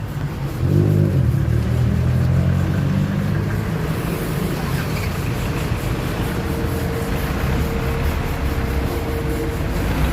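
Car engines running as vehicles drive slowly past on the road, a steady low rumble of traffic, with a faint steady whine for a few seconds past the middle.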